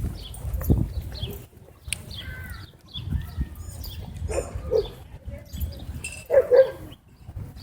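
Dogs barking: a few short barks about halfway through and again near the end, with small high chirping calls between them.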